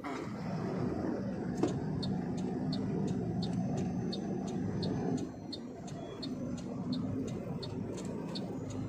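Truck engine running, heard inside the cab as the truck pulls across a junction onto a highway, with the turn indicator ticking steadily, about three ticks every two seconds, from about two seconds in.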